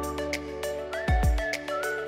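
Background music: held notes over light, regular ticking percussion, with a deep drum hit about a second in.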